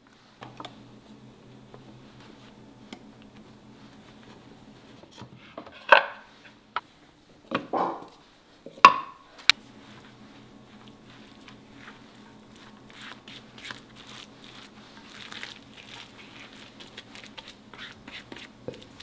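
Silicone spatulas working a crab stick, corn, egg and flour batter in a ceramic dish: a few sharp knocks and thuds against the dish about six to nine seconds in, then soft wet scraping and many small clicks as the batter is stirred.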